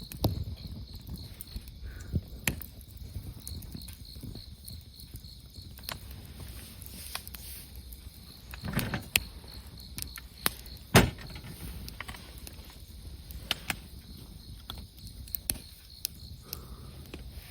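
Wood fire crackling, with irregular sharp pops and snaps, the loudest about eleven seconds in. An insect chirps steadily in the background in a quick run of high pulses.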